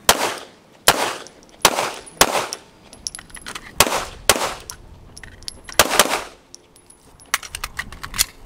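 Pistol shots fired one at a time at a steady, unhurried pace, about eight shots roughly a second apart. The shooting stops about six seconds in, leaving only a few faint clicks.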